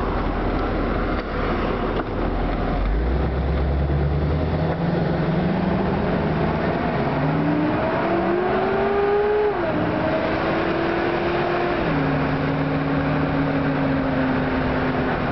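Small-block 350 V8 in a 1954 Corvette roadster pulling away from a stop. Its pitch climbs through the gears, drops at a shift about nine and a half seconds in and again near twelve seconds, then settles to a steady cruise, with road and wind noise underneath.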